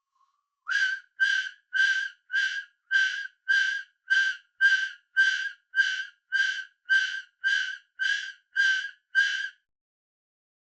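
A failed mouth whistle: about sixteen short, breathy puffs of air blown through pursed lips, under two a second, each giving only a faint, airy whistle tone instead of a clear note.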